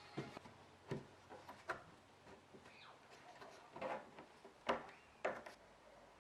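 Light wooden knocks and clicks at irregular intervals, about seven in all, the sharpest two near the end, typical of boards or drawer parts being handled and set down.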